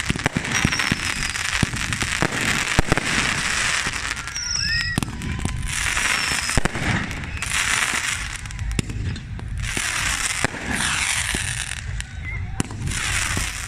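Fireworks display: a run of bangs and long crackling bursts, with a few short falling whistles and a rising whistle about four and a half seconds in.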